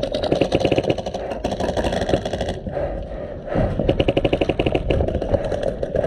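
Airsoft rifle firing on full auto in two long bursts of rapid, evenly spaced shots, with a pause of about a second in the middle.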